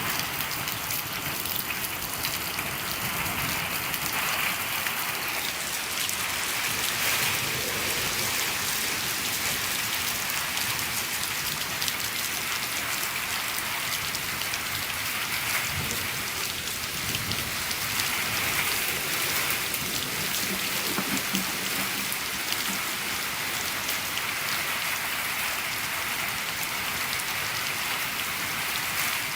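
Steady rain falling on a shed, heard from inside, an even patter with no letup.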